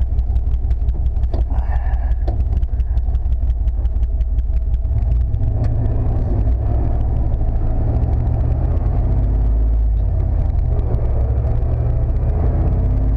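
1995 Chevy K1500 pickup's engine running as the truck drives slowly in four-wheel-drive low, heard from inside the cab. The low engine rumble grows stronger about five seconds in.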